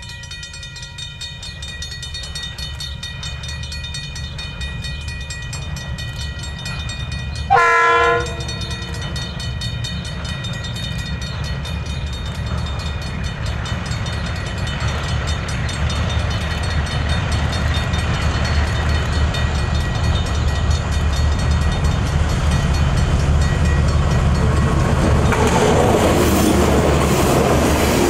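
Diesel-electric locomotives hauling a milk train, including DFB 7241, approach and pass, their engine rumble growing steadily louder. About eight seconds in comes one short blast of the locomotive horn. Near the end, as the locomotives and tank wagons go by, the wheels clack over the rails.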